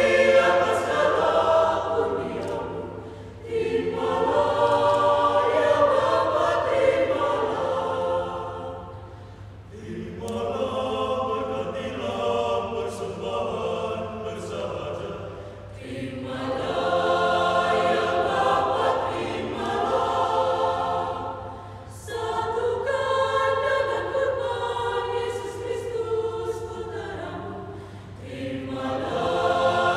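Mixed choir of women's and men's voices singing, in phrases of about six seconds with brief dips between them.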